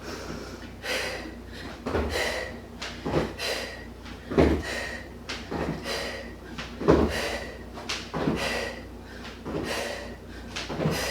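Thuds and knocks of a person exercising on the floor at home, coming roughly once a second and unevenly spaced.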